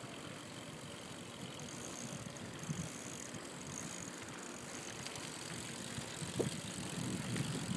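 Bicycles riding on a paved path: steady rolling noise with a fluctuating low rumble and a small click about six and a half seconds in.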